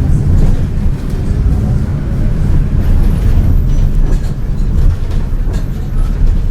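IVECO 170S28 city bus running with a steady, loud low rumble from engine and road, with light rattling over it.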